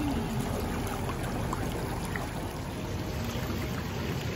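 Steady rushing and splashing of churning spa-pool water from the whirlpool jets.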